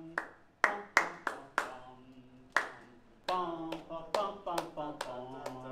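A man claps out a rhythm, about a dozen sharp hand claps in an uneven pattern, while singing the notes on syllables to show how the opening phrase of the band's music goes. In the second half the sung notes come quicker and more continuously between the claps.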